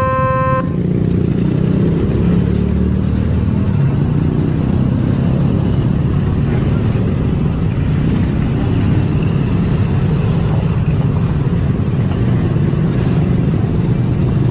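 A railway crossing's two-tone electronic warning bell cuts off about half a second in, then road traffic takes over: cars and motor scooters driving over the level crossing, their engines running in a steady low rumble.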